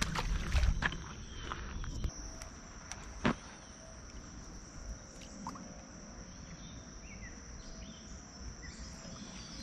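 Steady high-pitched drone of insects, with a few low thumps in the first two seconds and a sharp tap about three seconds in.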